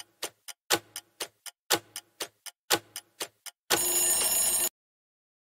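Quiz countdown-timer sound effect: clock-like ticking, four ticks a second with the first of each second loudest. About 3.7 s in the ticking gives way to a one-second alarm ring that marks the countdown reaching zero.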